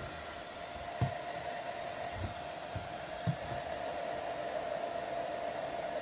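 Ontel Handy Heater Turbo 800 plug-in ceramic space heater running, its fan giving a steady whir with a humming tone, a noise the owner calls far from quiet. A few soft low bumps in the first half come from the heater being handled.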